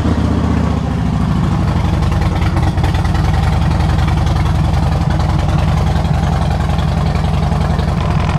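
Harley-Davidson V-twin motorcycle engine idling just after being started, settling within the first second into a steady idle.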